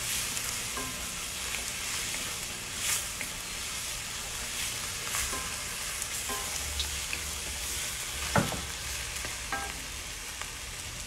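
Marinated goat meat frying and sizzling in hot mustard oil with onions and spices, stirred in the pan. There are a few short knocks; the loudest is a sharp one about eight seconds in.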